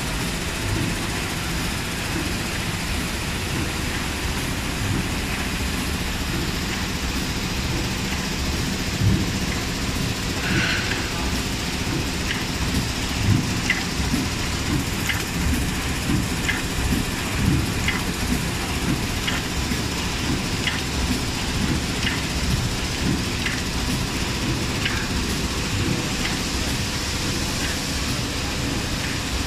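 Automatic zipper-pouch form-fill-seal packing machine running: a steady mechanical din with a low rumble. After one sharp hiss about a third of the way in, short hissing clicks from its pneumatic cylinders repeat about every three-quarters of a second.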